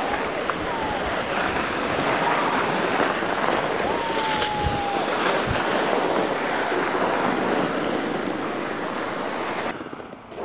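Wind buffeting the microphone, a steady loud rushing noise. A faint thin tone sounds for about a second some four seconds in, falling slightly in pitch. The rushing cuts off abruptly near the end.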